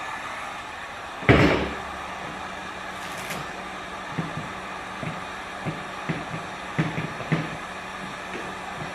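Handling noise from working a vinyl decal onto a plastic dirt bike panel: one loud thump about a second in, then a run of light taps and clicks, over a steady background hiss.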